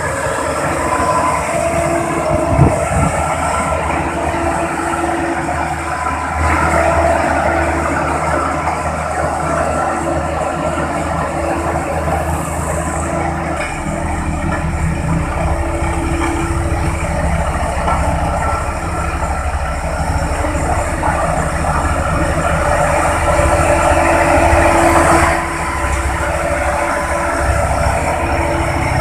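Road compactor's diesel engine running steadily with a low rumble. A single sharp knock about two and a half seconds in, and it gets louder for a few seconds near the end before dropping back suddenly.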